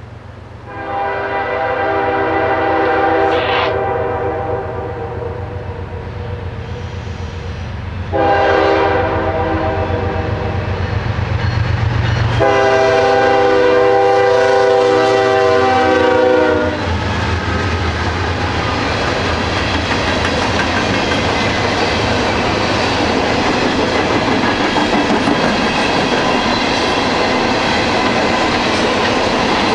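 Air horn of a Norfolk Southern GE ES40DC locomotive sounding three long blasts for a grade crossing as the train approaches, with its diesel engine rumbling underneath. About 17 seconds in the horn stops, and the locomotives and coal hopper cars roll past with a steady rumble and wheels clicking over the rail joints.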